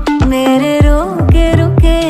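Background music: a Hindi film song with a sung melody over a steady drum beat.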